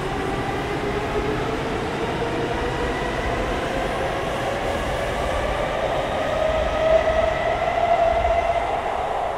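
N700S Shinkansen train pulling away, its traction motors and inverters whining in several tones that climb slowly in pitch as it gathers speed, over a low rumble. It is loudest about seven to eight seconds in.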